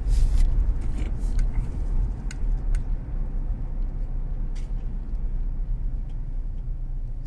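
Car driving, its low steady engine and road rumble heard inside the cabin, with a few short clicks or knocks, mostly in the first three seconds.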